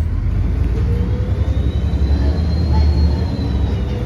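Bus diesel engine running under load with a steady low drone, and its turbocharger whistle rising in pitch over the first three seconds, then easing slightly near the end.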